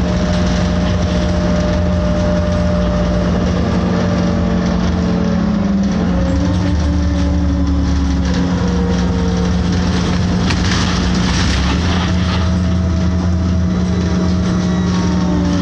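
City transit bus heard from inside the passenger cabin: engine and drivetrain running with a steady low hum and whining tones that slide up and down in pitch as the bus changes speed, with a brief clatter about eleven seconds in.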